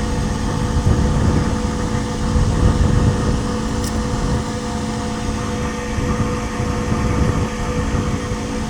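A gas heating unit's motor humming steadily as the unit runs through its heat-call start-up before the burners light, with an uneven low rumble beneath.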